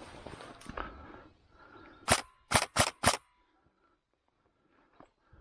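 Airsoft gun firing four sharp shots: one on its own, then a quick run of three about half a second later.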